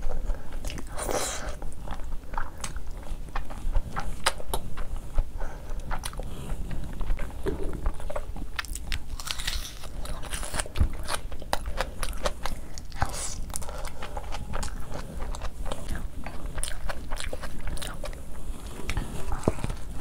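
Close-miked mouth sounds of eating by hand: wet chewing of rice and curry, with many sharp crunches. About halfway through come crunchy bites into a whole raw onion.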